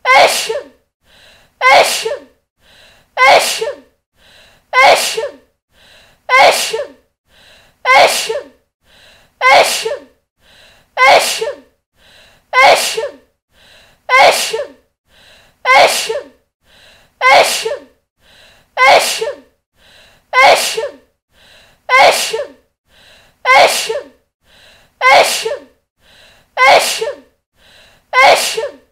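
A woman sneezing over and over, about nineteen sneezes evenly spaced roughly every second and a half and all alike. Each sneeze is preceded by a faint, quick breath in.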